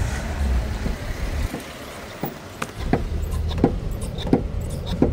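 A Renault Master van running with a steady low rumble, joined from about halfway in by a series of short sharp knocks.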